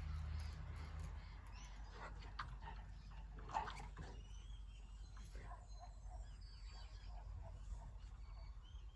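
Faint outdoor ambience with small birds chirping, the calls coming thicker in the second half; a low rumble fades out about a second in.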